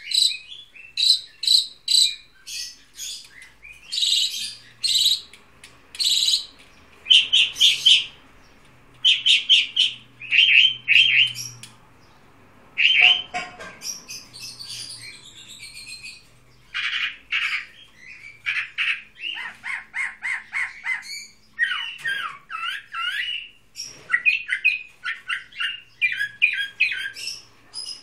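Caged songbird singing a long, varied song: loud, high-pitched phrases of rapidly repeated notes, each phrase a second or less, separated by short pauses.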